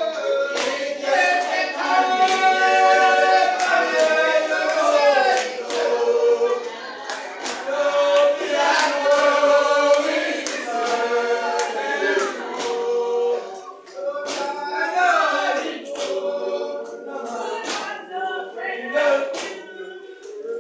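A church congregation singing a spiritual together, many voices in unison over a steady beat of sharp strokes, about three every two seconds.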